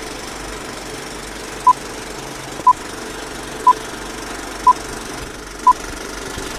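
Film-leader countdown sound effect: a steady old film-projector rattle with a short high beep once a second, five beeps in all starting about a second and a half in.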